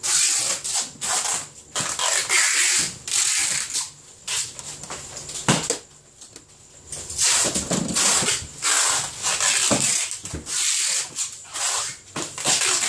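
Plastic food containers being handled and stacked onto freezer shelves: irregular rustling and scraping of plastic, with a sharp knock about halfway through.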